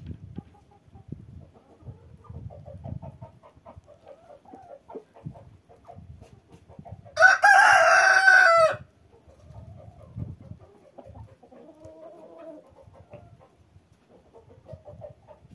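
A rooster crows once, loud and close, about seven seconds in, for about a second and a half. Around it, chickens cluck softly on and off.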